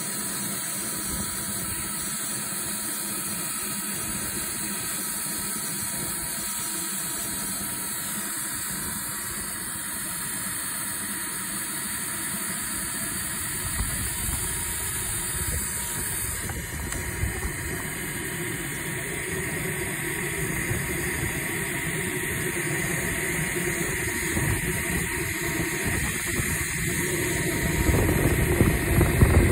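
Kingtech K-86 model jet turbine running steadily at idle, a continuous hiss and whine. There are a few short knocks about halfway through, and the sound grows louder with more rumble near the end.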